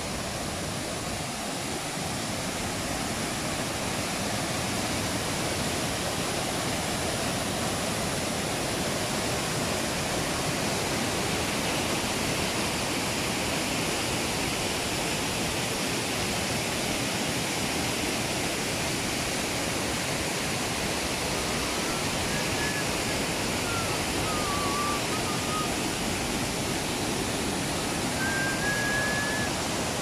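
Langfoss waterfall pouring down a steep rock face over boulders, a steady rushing of water.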